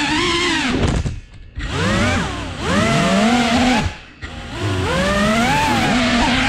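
A 3.5-inch cinewhoop FPV drone's motors and ducted propellers whining, their pitch rising and falling with the throttle. The sound drops away sharply twice, about a second in and about four seconds in, as the throttle is chopped, then climbs back in pitch as it is applied again.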